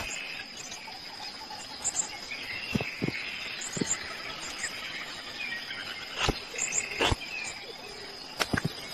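Jungle ambience: a steady high insect drone with birds chirping, and several sharp clicks scattered through.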